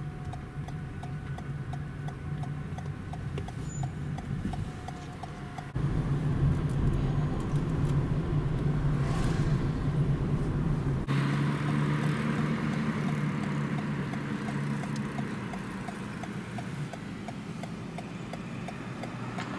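Vehicle engine and road noise, a steady low hum that changes abruptly twice, at about six and eleven seconds in, as the footage cuts. A faint regular ticking runs under it.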